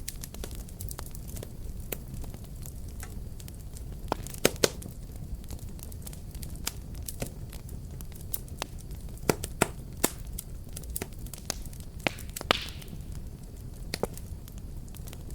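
Wood fire burning: a steady low rumble of flames with irregular sharp crackles and pops, the loudest a double pop about four and a half seconds in, and a brief hiss near the end.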